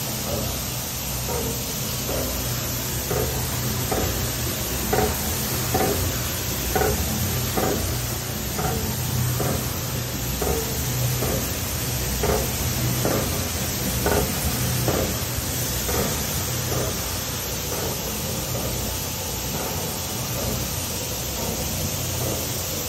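Niagara M-200 200-ton OBI air-clutch punch press running with a steady low hum. A string of light knocks, about one or two a second, sounds as it cycles, and they stop about two-thirds of the way through, leaving only the hum.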